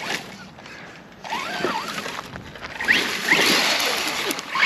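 ARRMA Outcast 4S brushless RC truck revving in several short bursts, its motor whine rising and falling, with a rush of tyres churning through tall dry weeds and dirt as the truck struggles to push through.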